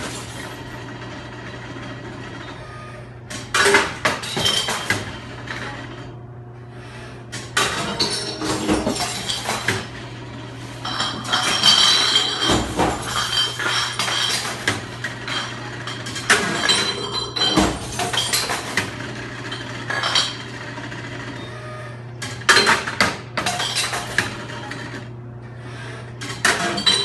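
Bottle-return machine breaking glass bottles: clusters of clinking, clattering and smashing glass every few seconds over the machine's steady low motor hum.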